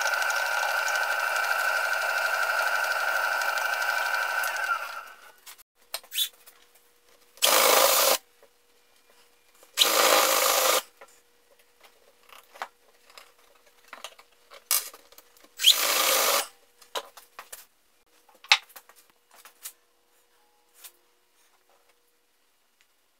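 A drill running steadily as its bit bores a hole into a wooden axe handle, stopping about five seconds in. Afterwards come three short rushes of noise, each under a second, and a few light clicks and knocks.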